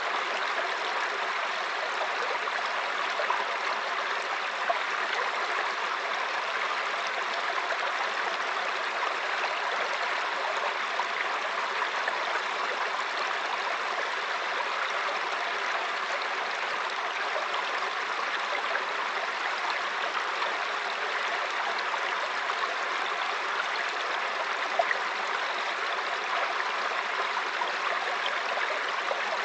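Mountain stream flowing over rocks: a steady babbling rush of water with small splashes scattered through it.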